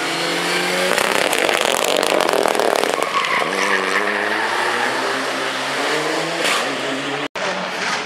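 Mitsubishi Lancer Evolution rally car's turbocharged four-cylinder engine at racing speed, with a dense crackle from about one to three seconds in. Then the engine note climbs steadily as the car accelerates away, and the sound cuts out for an instant near the end.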